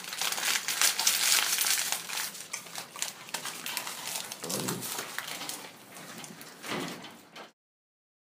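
Chimpanzees eating at close range: wet chewing and crunching clicks, with two short lower sounds about four and a half and nearly seven seconds in. The sound stops abruptly about seven and a half seconds in.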